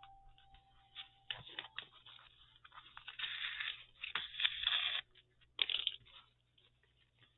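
Linen thread being pulled through the holes of a paper signature during pamphlet stitching, with the paper rustling: several rasping pulls, the longest and loudest from about three to five seconds in.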